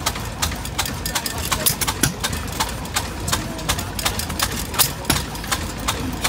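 Southern Cross hit-and-miss stationary engine running, with a low rumble under sharp mechanical clicks. The clicks come about three times a second, a little unevenly.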